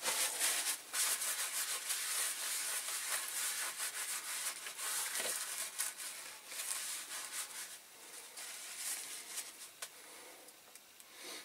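Hot caustic soda bath fizzing and crackling, a dense hiss of fine pops, as it strips the paint from diecast model parts; it dies away over the last few seconds.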